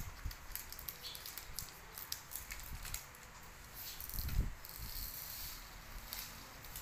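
Small plastic packet rustling and tiny resin diamond-painting drills clicking and pattering as they are poured into a plastic tray, faint, with a soft low bump about four seconds in.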